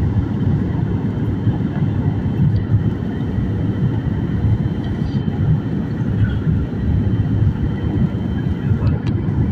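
Steady low rumble of a passenger aircraft in flight.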